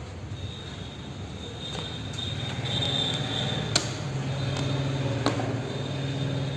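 A motor vehicle's engine hum that swells in the middle and eases off again, with two sharp metallic clicks about a second and a half apart.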